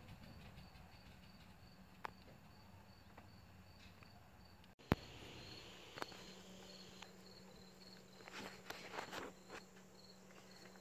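A cricket chirping faintly and steadily, about three chirps a second.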